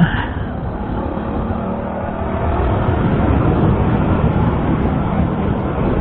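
Suzuki Shogun Pro 125 single-cylinder four-stroke motorcycle running under way, mixed with steady wind rush on the action-camera microphone. It gets somewhat louder about two and a half seconds in.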